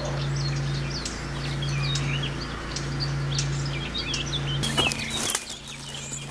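Small songbirds chirping and singing in quick, varied short calls, over a low steady hum that breaks off briefly every second or so. A short rustling burst comes about five seconds in.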